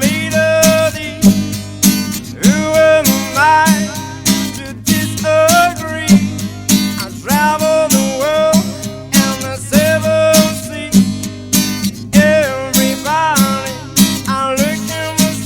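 Live acoustic guitar music, strummed in a steady rhythm with a bending melody line over it.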